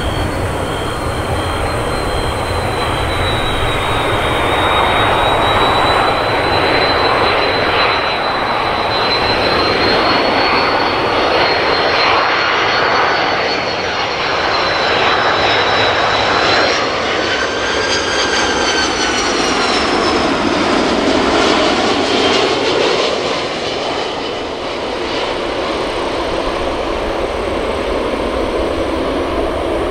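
Airbus A330-302's two General Electric CF6-80E1 turbofans on landing approach: a steady jet rumble with a high fan whine. The whine grows as the airliner comes in low overhead and slides down in pitch as it passes, a little past halfway through.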